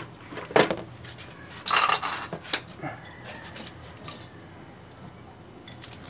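Hand tools and small parts being handled on a tiled floor: a few scattered clicks and clinks, with a short louder rattle about two seconds in.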